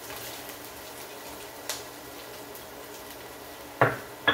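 Oil sizzling faintly in a frying pan, with a light click a little under two seconds in and two sharp knocks of kitchenware near the end, the second with a short metallic ring.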